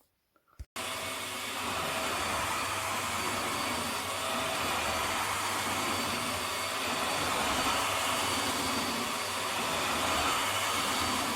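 Vax Mach Air corded upright vacuum cleaner starting abruptly under a second in, then running steadily: an even rush of air with a faint steady whine.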